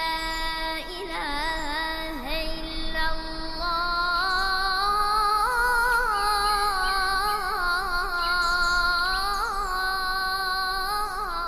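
A muezzin's solo voice chanting the azan, the Islamic call to prayer, in the Turkish style. He holds long melismatic notes with wavering ornaments, and the pitch steps up about four seconds in.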